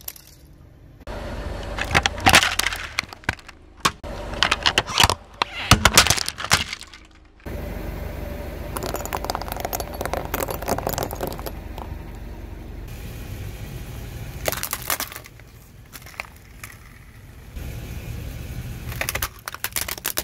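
A car tyre rolling over and crushing hard plastic toys and sticks of chalk: bursts of sharp cracks and snaps, with a steady low rumble between the bursts.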